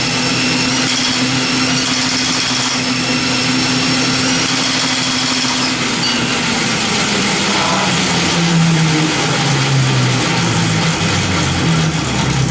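Cordless drill running and turning the go-kart's two-speed belt-and-chain drivetrain, spinning the big rear tires off the ground as a test of the transmission. The steady whine drops lower about halfway through as the load changes.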